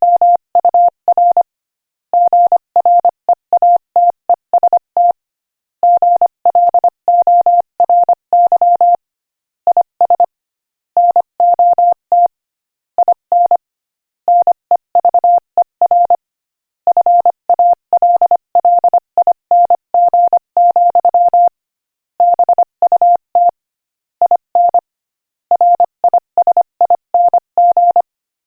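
Morse code sent at 25 words per minute as a single steady beep tone keyed on and off in fast dots and dashes, in letter and word groups separated by short pauses.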